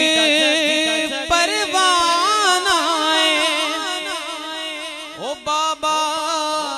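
A man singing a Punjabi naat into a microphone, drawing out long, ornamented, wordless-sounding phrases whose pitch slides up and down. A steady held note sounds beneath the voice throughout.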